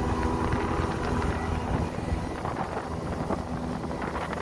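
Outboard motors driving an open river boat at speed, a steady running drone with wind buffeting the microphone.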